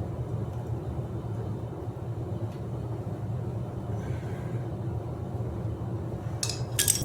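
Steady low rumble of background noise, with a few light clicks and a sharper pair of clicks about six and a half seconds in, from work on the bike's shifter cable.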